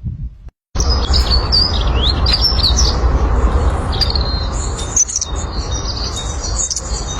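Small songbirds chirping and singing in quick, high gliding notes, over a loud steady low rumble; it starts abruptly under a second in.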